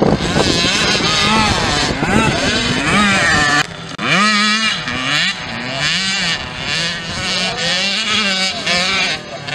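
Youth motocross bikes racing, engines revving up and down, the pitch rising and falling repeatedly as the riders accelerate and back off. A brief dip in the sound comes about four seconds in.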